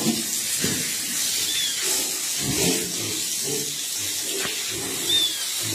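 Water running from a garden hose, a steady hiss, with uneven low muffled sounds over it and two faint short high chirps.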